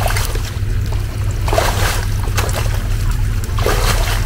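Muddy water splashing and sloshing in several short surges as someone wades through a flooded rut and drags a tangle of branches through it, over a steady low engine rumble from an idling off-road vehicle.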